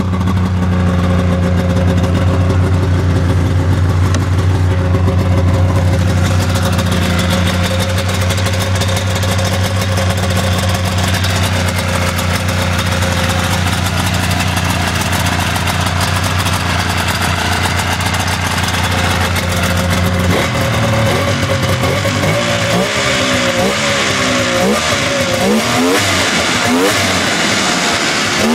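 Polaris XLT snowmobile's three-cylinder two-stroke engine idling steadily, then revved up and down several times in quick blips over the last several seconds.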